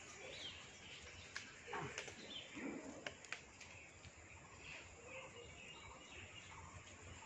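Faint outdoor ambience with a few light clicks and rustles and faint bird chirps.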